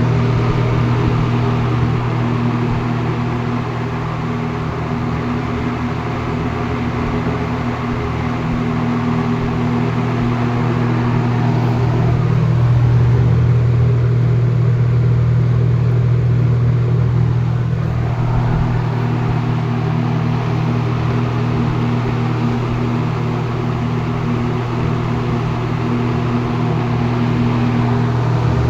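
A 1970s Monarch Aire three-speed box fan with a General Electric motor running steadily: a constant low motor hum under the rush of air from the blades, the airy part easing off a little for a few seconds midway.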